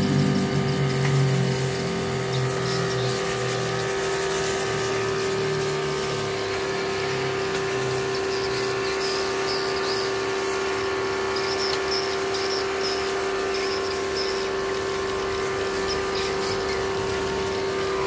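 An engine running steadily at one constant speed, giving an even hum. Faint short high-pitched chirps come and go in the second half.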